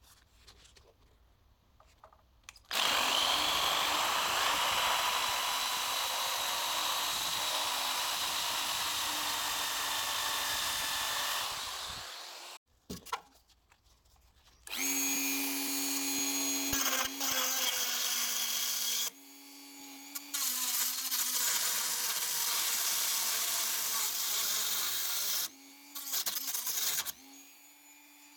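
Handheld rotary tool working on steel bodywork: first a wire brush wheel scouring the metal with a harsh hiss, then, after a short pause, a small cut-off disc cutting and grinding, the motor's steady whine over the grinding hiss. The tool stops and restarts a few times near the end.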